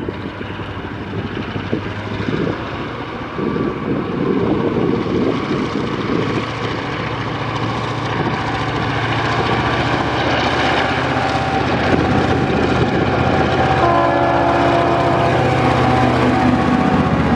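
Two Tasrail diesel-electric locomotives, 2054 and 2051, hauling a loaded coal train, their engines running hard and getting steadily louder as they come close and pass. Near the end a few steady tones come through over the engine noise.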